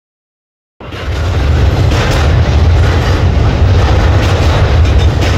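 Silence for under a second, then the sound cuts in abruptly: a freight train rolling past close by, a steady heavy rumble with the clatter of wheels on the rails.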